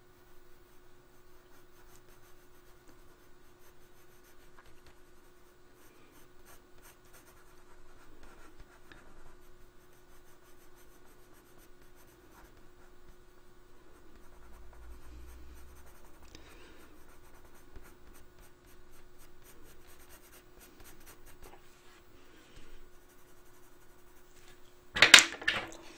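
Coloured pencil scratching softly on paper in many short strokes, shading around a drawn eye, over a faint steady hum. About a second before the end there is a loud, brief clatter.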